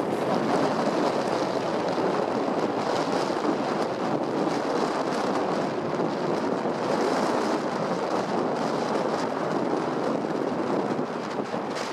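Steady rushing noise of wind on the microphone mixed with road and vehicle noise, with no distinct events.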